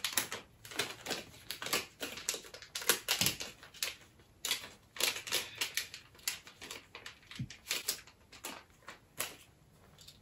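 Plastic packaging of a Raspberry Pi Pico crinkling and crackling in the hands as the pack is pulled open without a knife. The crackles come thick and irregular, then thin out near the end.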